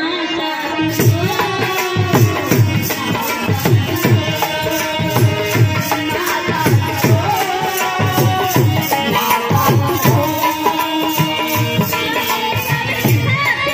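Live Indian folk music: a dholak drum keeps a steady beat, plastic hand clappers clack in time, and a voice sings the melody over them.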